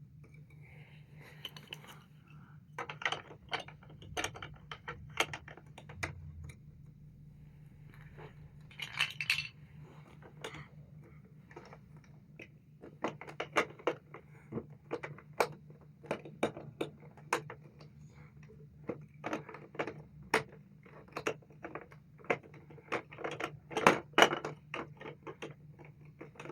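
Plastic Duplo bricks clicking and clattering as they are handled and fitted together: many sharp clicks in irregular clusters, over a low steady hum.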